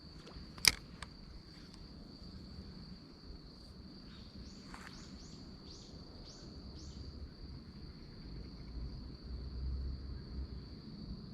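Outdoor insect ambience: a steady high-pitched trill of crickets, with a sharp click about a second in and a bird giving a quick run of about six short high notes around the middle.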